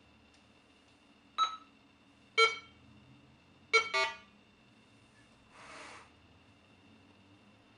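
Minelab Go-Find 60 metal detector giving short electronic beeps from its speaker as its display changes screens: four beeps, the last two close together. Near the end comes a soft, brief rustle.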